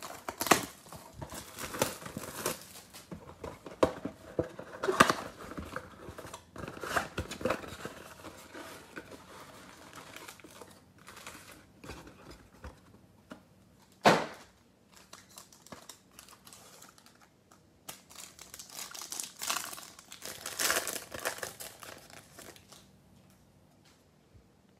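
Plastic shrink-wrap being torn off a trading-card box and crinkled, with dense irregular crackling. There is a single sharp knock about 14 seconds in. A second run of crinkling and tearing follows about 20 seconds in, as a pack wrapper is opened.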